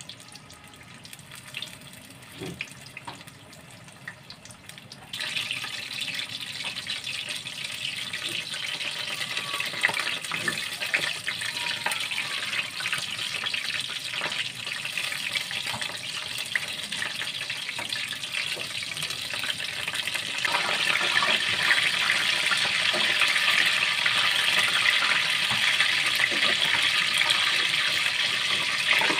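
Hot oil sizzling and crackling as besan-battered, mince-stuffed chili pakoras deep-fry in a kadai. The sizzle jumps up sharply about five seconds in as more battered chilies go into the oil, and grows louder again about two-thirds of the way through.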